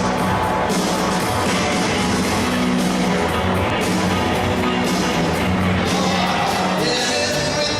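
Rock music with guitar and a steady bass line, played continuously.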